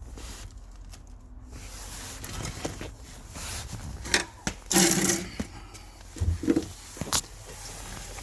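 Handling noise from hands-on wiring work: rustling with scattered sharp clicks and taps, and a louder rustle about five seconds in.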